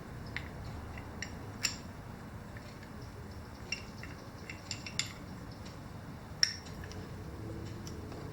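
Brake parts and small tools being handled at the bench: scattered light metallic clicks and taps, the loudest about six and a half seconds in.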